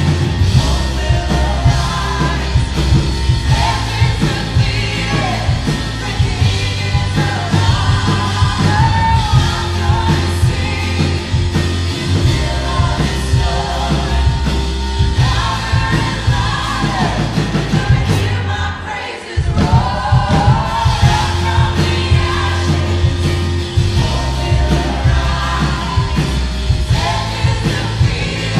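Live worship band playing a song with singing: drum kit, keyboard and electric guitar under sung vocals. About two-thirds through, the bass and drums drop out for a moment before the full band comes back in.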